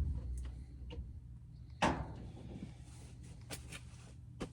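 Scattered clicks and knocks of hands handling parts on a dryer's control panel, the loudest about two seconds in, over a low steady hum.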